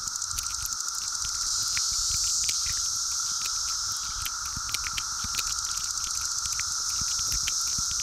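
Steady droning chorus of 17-year periodical cicadas: a high, hissing drone over a lower steady buzz, with scattered sharp clicks and crackles throughout.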